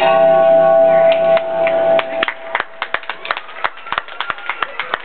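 The programme music ends on a held chord about two seconds in. Scattered hand clapping from a small audience follows.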